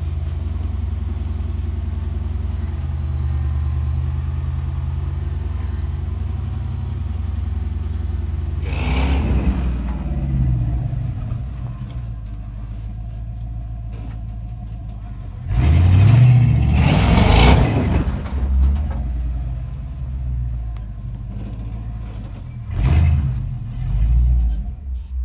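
Off-road truck engine running at low revs, revved briefly about a third of the way in, then harder for two or three seconds past the middle, with two more short revs near the end.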